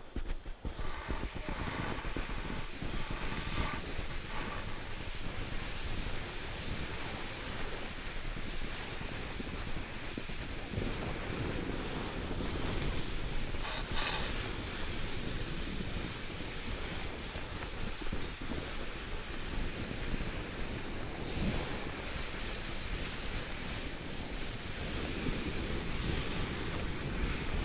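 Continuous rushing hiss of skis sliding over snow, mixed with wind buffeting the microphone, swelling and easing in level.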